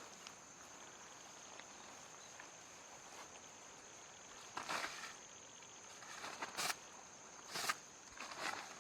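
Steady, high-pitched drone of insects, with a few short rustles about halfway in and twice more near the end.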